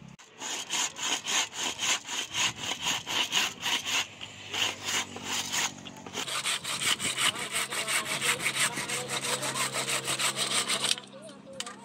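Handsaw cutting through a round piece of wood in fast back-and-forth strokes, about four or five a second. There is a brief pause a little before the middle, and the sawing stops about a second before the end.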